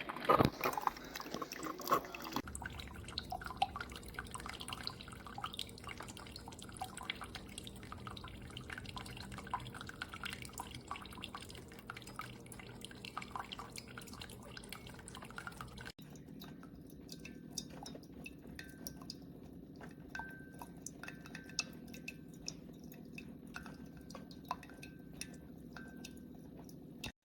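Keurig K-Supreme Plus single-serve coffee maker brewing: a steady low hum with coffee dripping and small irregular ticks.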